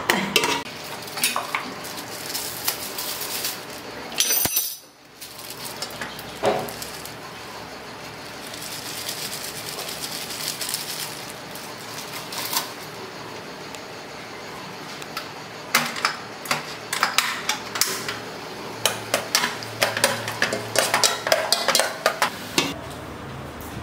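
Metal ladle clinking and scraping against a stainless steel pot while stirring fish pieces frying in oil, over a steady sizzle. The clinks come in quick runs, thickest over the last several seconds.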